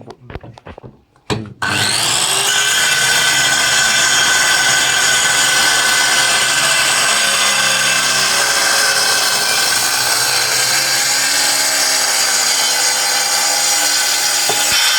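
Boda electric circular saw switched on about a second and a half in, running steadily with a high whine, then switched off at the very end.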